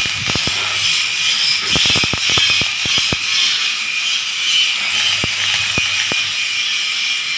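Wire-feed (MIG) welding arc crackling on a steel frame: a steady high hiss with sharp crackles and pops, in bursts that come thickest in the first three seconds and again around five to six seconds in.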